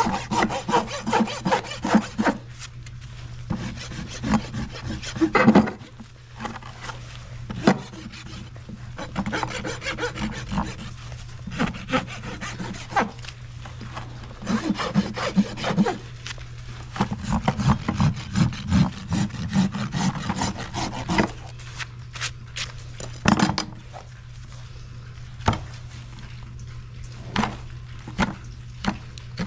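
A farrier's rasp filing a horse's hoof in bursts of quick scraping strokes, with short pauses and a few sharp knocks between them, during a hoof trim.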